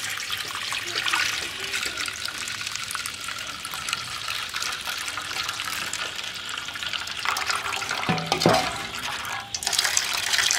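Second-squeeze coconut milk pouring in a steady stream through a wire-mesh strainer into a large metal pot, splashing into the milk already in it. There is a short knock about eight seconds in, and the splashing grows louder near the end.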